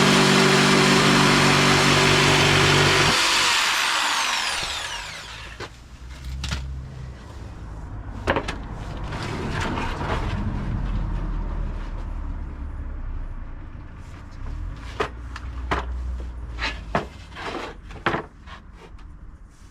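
Electric power tool running at full speed, switched off about three seconds in and winding down with a falling whine. Then scattered knocks and light clatter.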